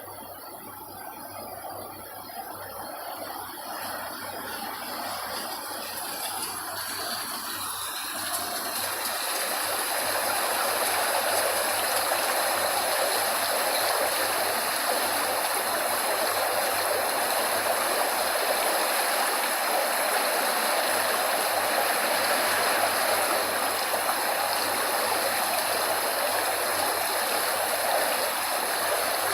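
Flowing water of a stream, a steady rushing that fades in over the first ten seconds or so and then holds level.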